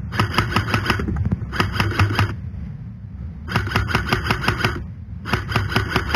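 Airsoft rifle firing on full auto in four bursts of about a second each, a fast rattle of evenly spaced clicks with short pauses between bursts.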